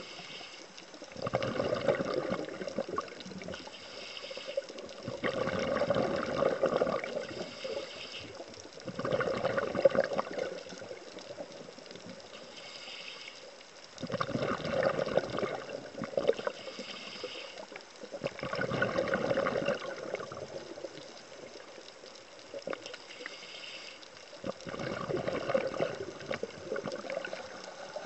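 Underwater bubbling from a scuba diver's exhaled breath: six gurgling bursts, roughly every four to five seconds, with a quieter hiss between them.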